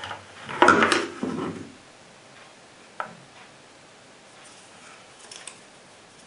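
Hard polymer holster and paddle being picked up and handled on a tabletop: a burst of clattering and knocking in the first two seconds, a single sharp click about three seconds in, then light rustling.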